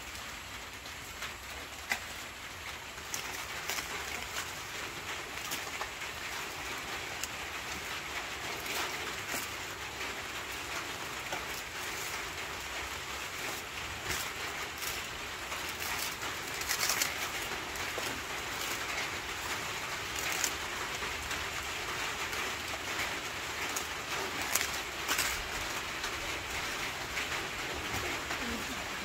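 Dry, charred banana leaves crackling and rustling as they are handled and pulled open, over a steady hiss, with a dove cooing in the background.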